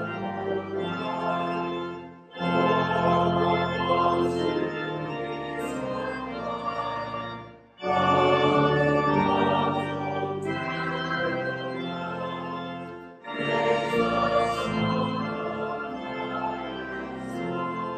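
Organ playing a hymn in sustained chords, with a choir and congregation singing along. The phrases break off briefly about every five seconds.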